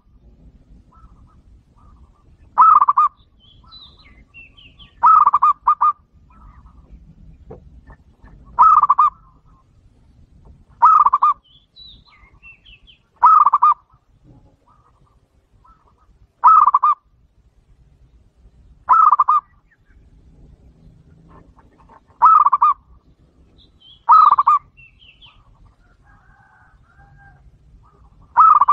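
Zebra dove (perkutut) cooing: about ten short, loud phrases, one every two to three seconds, each a quick run of rolling coos. Faint higher chirps sound between the phrases.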